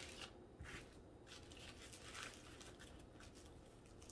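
Near silence, with a few faint rustles of small plastic resealable bags being picked up.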